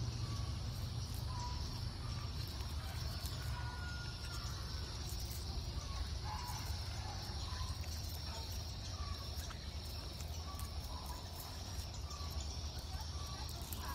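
Outdoor ambience of a leafy garden: a steady high insect drone with scattered short bird chirps throughout, over a low rumble.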